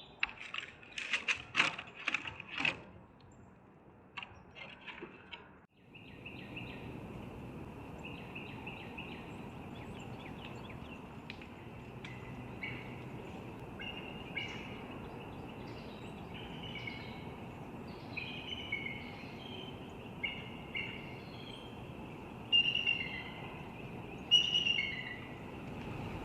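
Outdoor birdsong and calls picked up by the nest cam's microphone: a quick series of sharp calls in the first few seconds, then, after an abrupt change about six seconds in, repeated short two-note calls that grow louder near the end. A steady high-pitched drone runs underneath.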